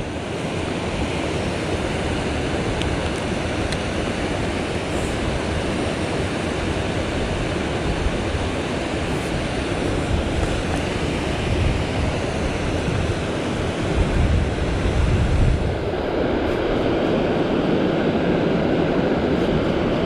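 Steady rushing of a mountain stream, with a few low rumbling surges about two-thirds of the way through.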